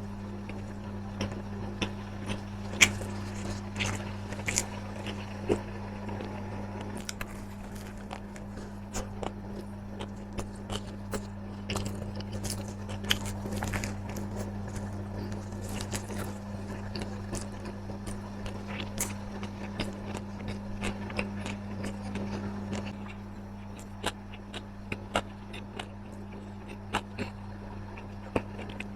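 Close-miked eating: crunchy food being bitten and chewed, with many short, sharp crunches and clicks, over a steady low hum.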